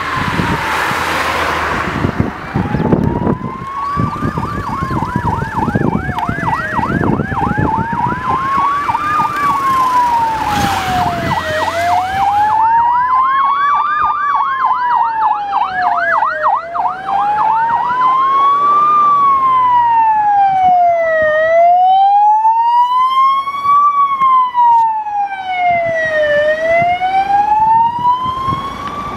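Emergency vehicle sirens: a slow wail rising and falling about every five seconds throughout, overlaid from about three seconds in until about eighteen seconds in by a fast yelp. A vehicle passes close at the start and again around ten seconds in.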